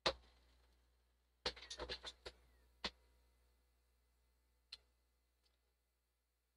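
A few sharp clicks and taps of small hard objects: one at the start, a quick run of about six around a second and a half to two and a half seconds in, then single ones near three and near five seconds.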